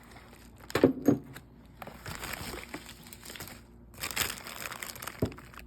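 Handling noises: two sharp knocks about a second in, then stretches of rustling, and a single click near the end.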